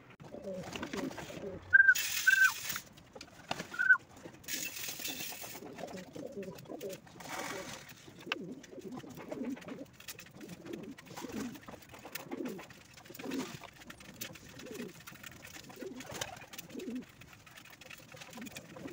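Domestic pigeons cooing over and over, a low call every second or so. In the first five seconds there are a few short high squeaks and two brief bursts of rustling noise.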